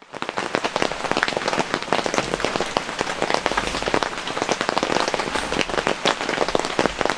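Rain falling steadily, with a dense, irregular patter of separate drops striking a surface.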